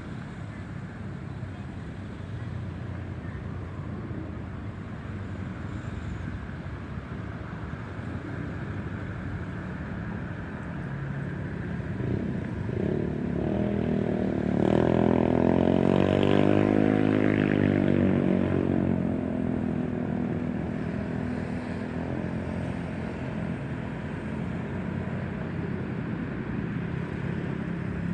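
Boeing 737-800 jet airliner with CFM56-7B engines flying over: a steady jet rumble that builds to its loudest about fifteen to eighteen seconds in, with a sweeping, phasing whoosh as it passes overhead, then slowly fades.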